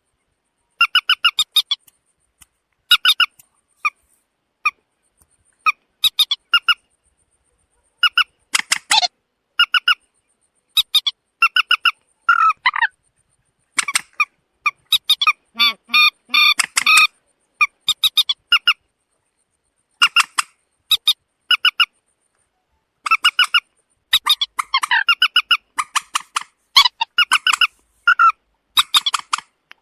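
Common moorhen (mandar batu) calling: loud, harsh clucking notes in quick clusters of a few pulses each, repeated every second or two, with a denser run of overlapping calls about halfway through.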